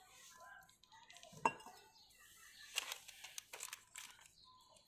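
A small paper packet of powder crinkling and crackling in the hands, after a single sharp clink about a second and a half in.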